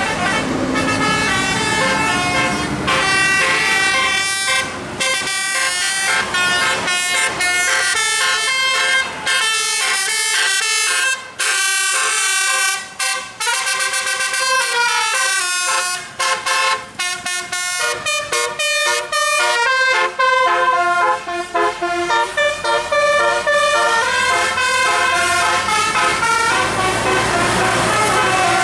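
Bus 'basuri' telolet horns playing melodies: runs of quick, stepped horn notes with short breaks between phrases.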